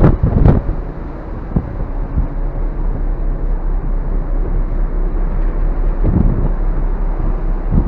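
Steady rumble of the passenger ferry Ogasawara Maru under way at sea, heard on its open rear deck, with wind gusting on the microphone right at the start and again around six seconds in and near the end.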